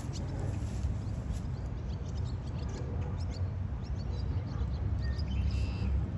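Small birds chirping and twittering over a steady low rumble, with one short clear whistled call about five seconds in.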